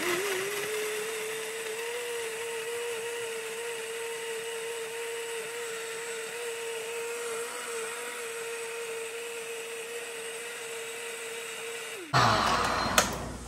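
Kitchen blender running, blending a milk smoothie with strawberries and banana: the motor spins up and holds a steady whine for about twelve seconds, then stops. A louder rustling noise and a sharp click follow near the end.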